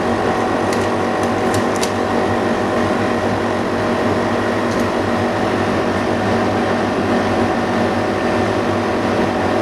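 Steady mechanical hum of a motor or fan, with a few light clicks about one to two seconds in and again near five seconds.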